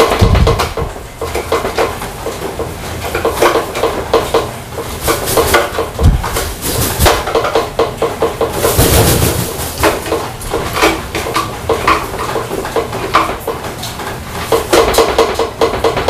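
A crow hopping and pecking about on a wooden table: a busy run of light taps, knocks and scrapes of beak and claws on wood and hard plastic, with a heavier thump right at the start and a few more around six and nine seconds in.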